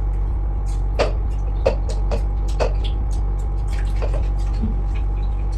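Eating sounds: short wet smacks and clicks from mouths and plates, a handful of them, over a steady electric hum from a running machine such as a fan.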